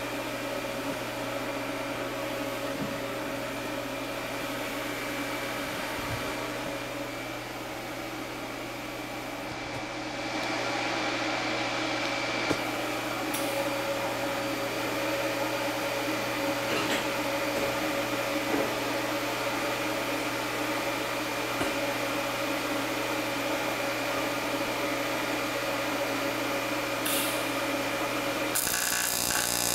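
Steady hum and whine of a TIG welding setup and its water cooler running. Near the end an AC TIG arc strikes on a thin aluminium can and buzzes.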